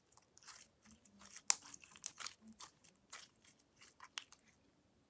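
Homemade glue slime being squeezed and kneaded between fingers, giving irregular sticky clicks, pops and squelches, the loudest about a second and a half in.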